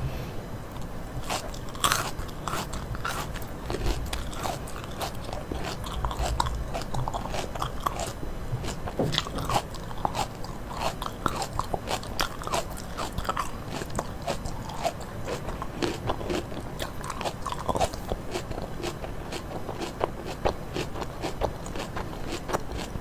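Close-miked eating: food being bitten and chewed with many irregular crunches.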